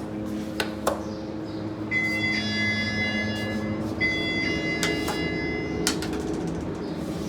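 Elevator alarm bell rung twice from the car's button panel, each ring a steady tone lasting about two seconds, with button clicks before the first ring and a steady hum underneath.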